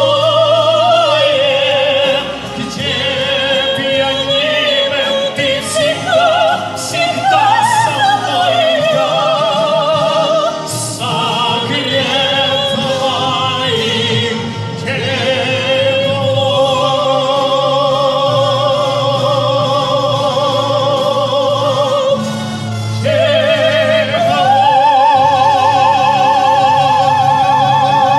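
A man and a woman singing a Russian pop ballad as a duet over recorded accompaniment, holding long notes with wide vibrato. Near the end they rise to a final high note and hold it.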